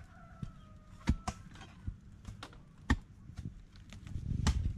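A small hand tool chopping into soil and roots at the base of a banana clump: a few sharp, irregular strikes, the loudest about a second in and about three seconds in, with a low rumble near the end.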